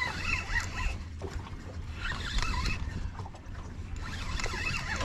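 Low, steady rumble of a boat at sea, with short warbling sounds in the upper range three times.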